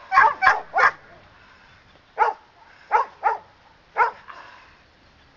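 A poodle barking hard on the leash at a helper waving a bite pillow in protection training. Three quick barks open, then four more come singly over the next three seconds.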